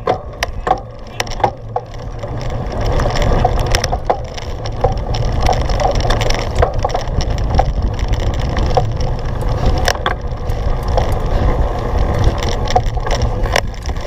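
Cyclocross bike ridden over rough, muddy ground, its frame and drivetrain rattling with scattered sharp clicks and knocks over a steady low rumble on the microphone.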